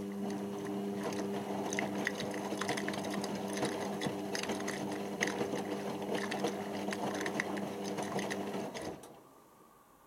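Indesit IWC6165 washing machine turning its drum during the rinse: the drum motor gives a steady hum while the wet laundry tumbles and splashes in the water with many small clacks. The motor and tumbling stop about nine seconds in, the pause between drum turns.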